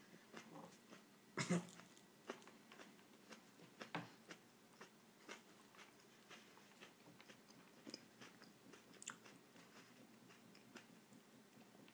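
Faint sounds of a Carolina Reaper chili pepper being bitten and chewed: a crisper bite about one and a half seconds in, another around four seconds, then scattered small crunches and mouth clicks.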